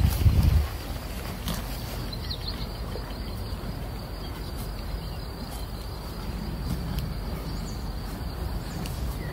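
Outdoor pasture ambience: a steady high insect buzz over a low rumble, with a few loud low thumps in the first half-second.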